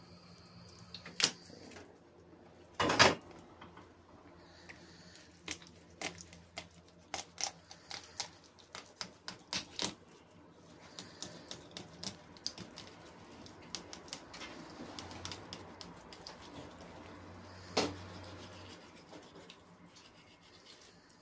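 Kitchen knife cutting and scraping through a salmon on a cutting board: irregular clicks and taps of the blade on the board, with a few louder knocks, the loudest about three seconds in.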